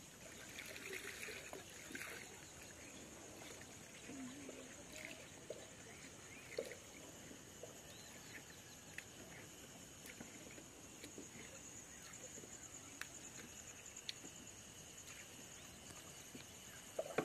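Faint river ambience: water trickling quietly, with scattered small clicks and knocks over a steady high whine.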